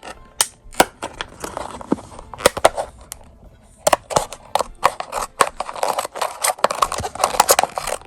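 Scissors cutting through a thin plastic cup: an irregular run of sharp snips and crackles.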